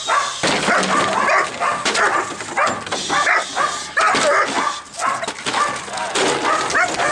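Dog barking rapidly and over and over, agitated at a decoy during protection training while straining and lunging on its leash.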